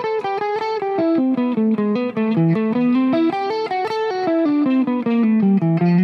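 Stratocaster-style electric guitar playing a single-note line in a steady stream of even notes, a constant-motion line moving through chord changes and landing on chord tones. The line steps down about a second in and then winds through a lower register.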